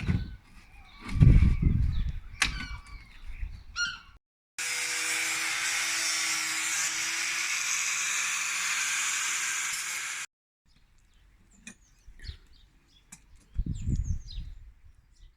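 An electric power tool runs steadily for about six seconds, starting and stopping abruptly, between stretches of birds chirping with low rumbling bumps.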